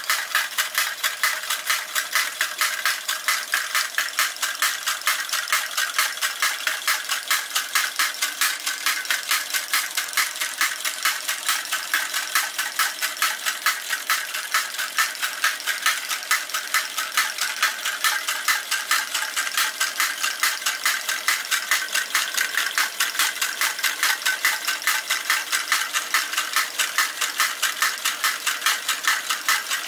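Wilesco toy drop hammer, belt-driven by a small Stirling engine, clattering in a rapid, even rhythm as the hammer head rises and drops, several strikes a second, with the Stirling engine's running mechanism under it.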